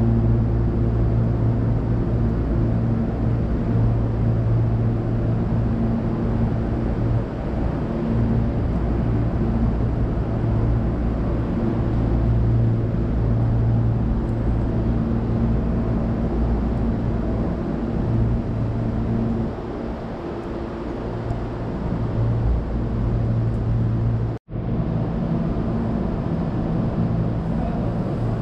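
Steady low electrical hum of a Hankyu electric train's on-board equipment while the train stands still. It cuts out for a moment about 24 seconds in.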